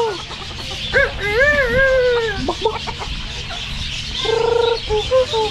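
Chickens calling and clucking: a long wavering call about a second in, several short calls, and a quick rattling trill past the middle, over a steady high hiss.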